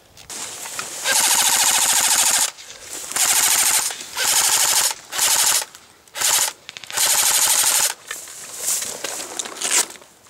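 Airsoft electric guns (AEGs) firing full-auto in bursts: a long burst of about a second and a half, several shorter bursts, then smaller, quieter bursts near the end.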